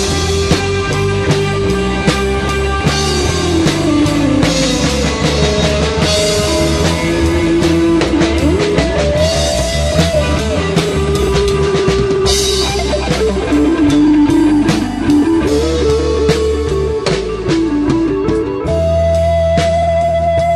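Live rock band playing an instrumental section: a lead electric guitar line with bent, gliding notes over bass guitar, keys and a drum kit.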